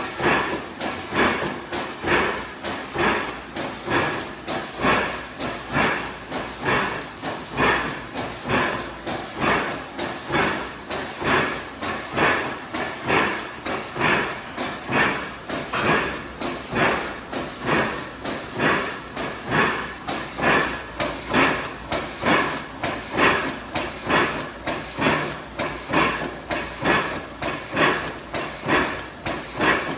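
IMA CD180 filling machine running: a fast, even mechanical cycle of clattering strokes mixed with hissing.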